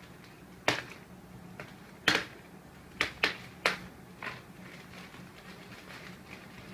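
Plastic courier mailer bag crackling sharply as it is worked open by hand, about six crisp crinkles over the first four seconds or so.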